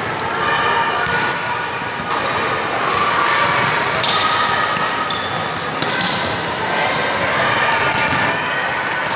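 Echoing sports-hall hubbub between volleyball rallies: many players' voices talking and calling out, with scattered ball bounces and thuds on the hardwood floor.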